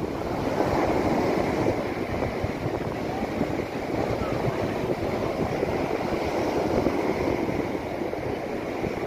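Sea surf breaking and washing up the beach in a steady rush, with wind buffeting the microphone.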